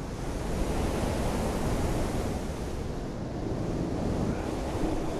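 Steady rush of wind noise, heaviest in the low end, with no distinct events.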